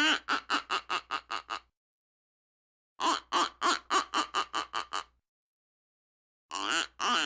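A duck quacking in quick runs of about eight quacks each, roughly five a second. The runs are split by pauses of a second or more, and a third run starts near the end.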